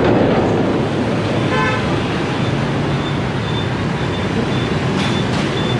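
Steady road traffic noise from a busy street, with a short vehicle horn toot about a second and a half in.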